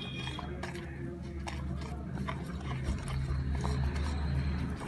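Cake batter being stirred in a mixing bowl, the utensil clicking and scraping against the bowl in irregular strokes over a steady low hum.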